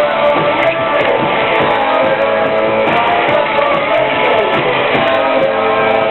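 Live rock band playing, with strummed electric guitar to the fore over the full band.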